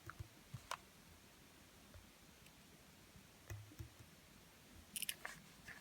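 Near silence broken by a few faint clicks and light taps: small-object handling of a Victorinox Classic keychain pocket knife. There is a single click about a second in, two more around the middle, and a short cluster near the end.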